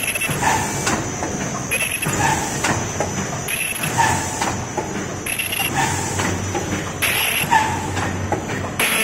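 Paper cup and bowl forming machine running at low speed: a steady mechanical clatter that repeats in a cycle about every one and three-quarter seconds, each cycle marked by a short high-pitched sound.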